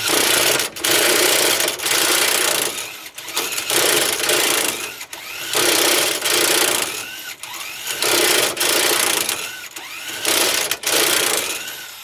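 Corded electric power tool run in about half a dozen bursts of a second or so, its motor whining down and back up between them.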